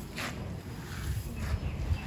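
Crumbly grey sand-cement concrete being crushed by hand: a few short, gritty crunches over a low rumble.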